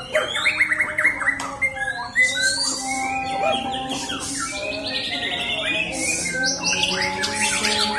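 White-rumped shama (murai batu) singing a fast, varied song of whistles, trills and quickly repeated notes.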